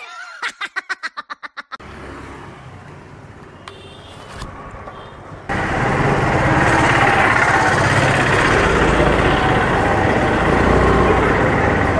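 Busy town-street traffic: motor scooters, cars and other vehicles passing in a steady wash of road noise that jumps louder about five and a half seconds in. A short, rapidly pulsing sound comes in the first two seconds.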